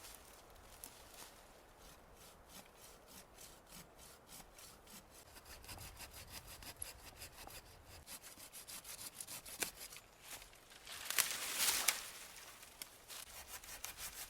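Hand saw cutting wood in quick, even strokes, with a louder rasping stretch about eleven seconds in.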